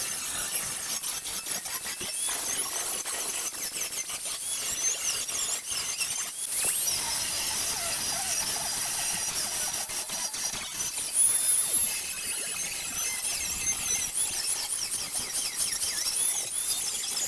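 High-pitched, shifting metal squeals and squeaks throughout, with frequent light clicks and knocks, from front axle hub parts being worked and fitted together.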